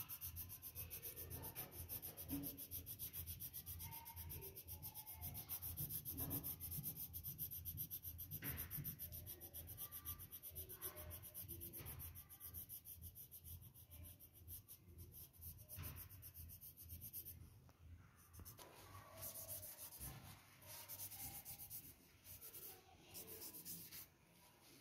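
Graphite pencil shading on paper in rapid back-and-forth strokes, faint. Near the end the strokes give way to a softer, sparser rubbing as a hand smooths the shading into the paper.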